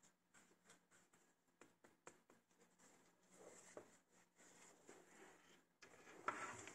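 Faint handling noise of a leather bag's shoulder strap being worked by hand: scattered small clicks and rubbing, with a louder rustle about six seconds in.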